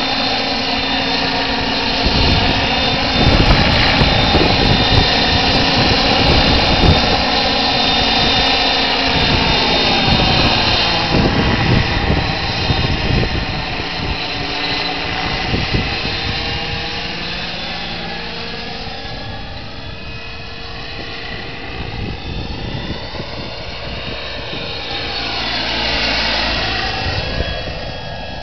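Radio-controlled model helicopter powered by a Wren gas turbine, flying past with a steady high turbine whine and the noise of its rotor blades. It is loudest in the first half, fades away, then swells again briefly near the end.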